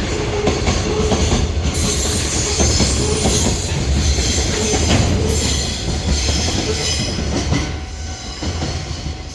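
Container freight train's wagons rolling past at speed: a steady rumble with clicking from the wheels over rail joints and a high wheel squeal. It fades away over the last couple of seconds as the end of the train passes.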